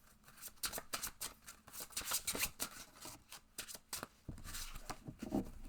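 A deck of cards being shuffled by hand: a quick, irregular run of papery flicks and taps as the cards slide and snap against each other before a card is drawn.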